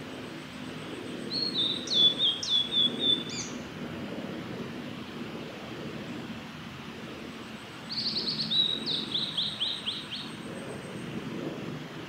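Male blue-and-white flycatcher singing: two song phrases about six seconds apart, each a short run of quick, clear high notes.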